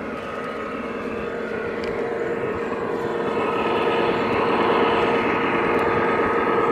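Sound module of a large-scale (LGB garden-railway) model diesel locomotive playing a steady diesel engine drone, slowly growing louder as the locomotive comes past.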